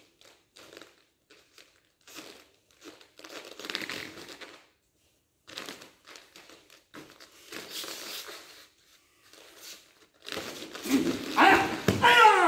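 Karate uniforms rustling and snapping in short bursts as two people grapple and strike, with light steps on foam mats. It ends with a loud shout near the end.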